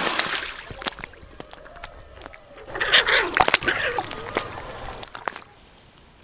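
A hooked fish thrashing and splashing at the water's surface while being played on a long fishing pole, in two loud bouts, at the start and about three seconds in, with scattered sharp clicks between.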